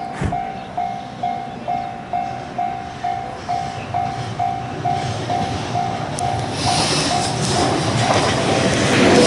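Japanese railway level-crossing warning bell ringing in steady repeated dings, about two and a half a second, while an approaching electric train's running noise and wheel clatter grow louder through the second half and cover the bell near the end.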